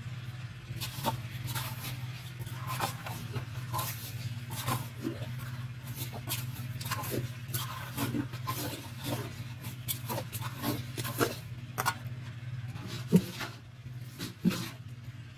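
Irregular light taps and knocks of a hand tool working a cement-filled wooden mould, over a steady low machine hum, with two louder knocks near the end.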